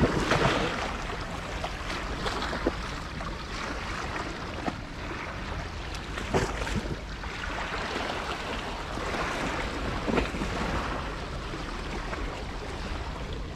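Small sea waves washing against breakwater rocks, a steady wash with wind on the microphone, and a few short knocks about a second in, around six seconds in and around ten seconds in.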